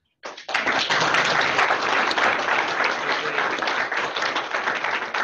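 Audience applauding, a dense patter of many hands clapping that starts suddenly about a quarter second in.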